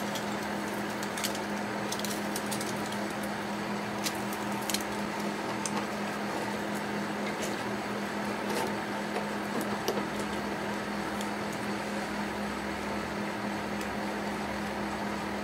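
A steady machine hum, with scattered light metal clicks as a clock's steel mainspring and brass wheel are handled and fitted into the movement plates.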